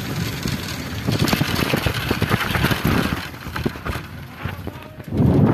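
Wind buffeting a handheld phone's microphone while riding a bicycle on a rough dirt road, with rattling knocks and the rustle of a padded jacket sleeve rubbing near the microphone.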